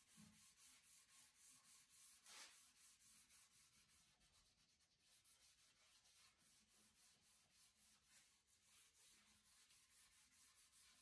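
Faint rubbing of a sponge applicator pad wiping Rubio Monocoat oil finish along a walnut crib rail, in quick back-and-forth strokes about three a second, one a little louder about two and a half seconds in.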